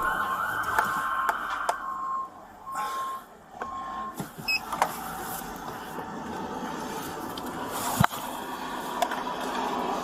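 Repeated short electronic beeps, about one and a half a second, over vehicle noise; they stop about four seconds in. A sharp knock comes near eight seconds.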